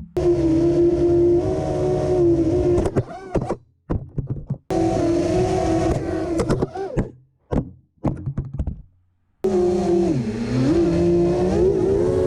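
The electric motors and props of a 5-inch FPV freestyle quadcopter (Armattan Oomph Velvet 2300 kV motors on 5-inch three-blade props) whining under throttle. The pitch rises and falls in three long bursts that cut off abruptly, with short blips and brief silences between as the throttle is punched and chopped.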